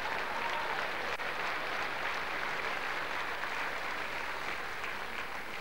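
Large live audience applauding steadily, easing off slightly near the end.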